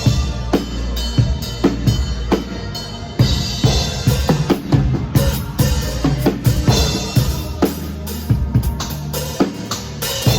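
Live band music played instrumentally, with a drum kit's kick, snare and rimshot hits leading over sustained low bass notes.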